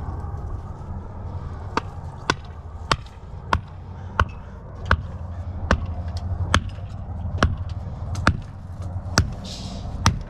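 Hammer blows struck at a steady pace, about one every 0.7 seconds, over the steady low drone of an engine running.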